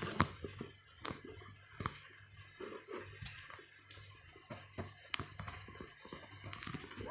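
Quiet eating sounds: soft chewing and a few light clicks of cutlery against a plate, spaced a second or so apart, over a low steady hum.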